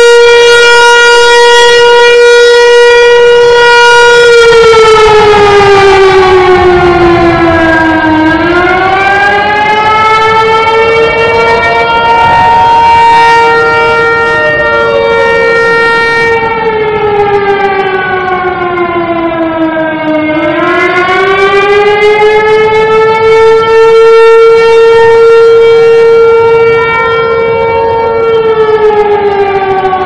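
Civil defense siren wailing loudly in slow cycles. Its pitch holds steady, slides down over a few seconds, then climbs back up and holds again, about three times.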